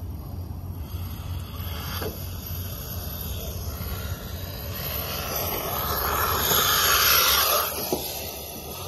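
Electric RC truck running on a 2S LiPo, its motor whine and tyre noise growing as it drives toward the camera. It is loudest as it passes close by about seven seconds in, then quickly fades, over a steady low rumble.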